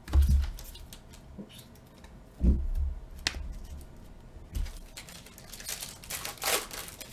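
Trading cards and a foil Mosaic card pack handled on a tabletop: a dull thump just after the start and another about two and a half seconds in, a sharp click, then the pack's foil wrapper crinkling as it is torn open near the end.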